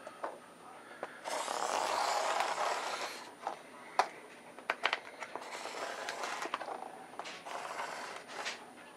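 Black Sharpie marker scraping across a painted foam diorama base in two long strokes, marking where the track will lie, with a few sharp clicks between the strokes.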